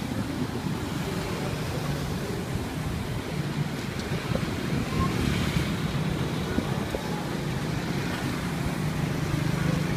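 Steady street traffic noise with a low engine hum that grows stronger near the end, and wind buffeting the microphone.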